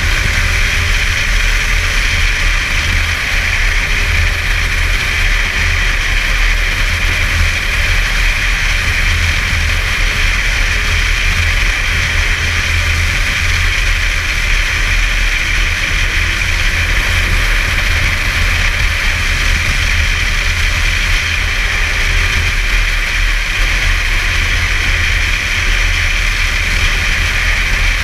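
Snowmobile running at a steady cruising speed on a packed snow trail, its engine and track making a continuous hiss-like drone. A heavy low rumble of wind buffets the helmet-mounted microphone.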